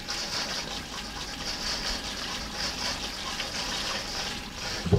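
Pull-out kitchen faucet sprayer running steadily, cold water spraying onto cubes of blanched veal in a stainless-steel colander over a steel sink; the spray stops near the end.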